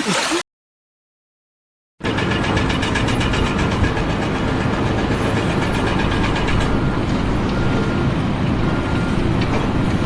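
A second and a half of silence, then a heavy machine or engine running steadily, loud and rumbling, with a light regular ticking over it.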